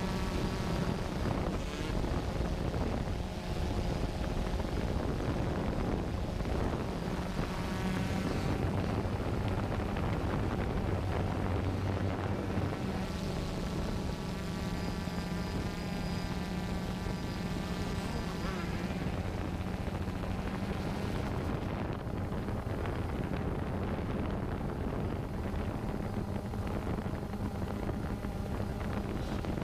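Steady hum of a camera drone's motors and propellers with wind on the microphone. Over it, motocross dirt-bike engines rev up and down in pitch as the bikes ride the track.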